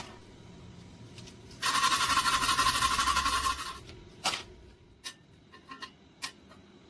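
MIG welder arc crackling in one even burst of about two seconds, starting a second and a half in, followed by a few sharp clicks.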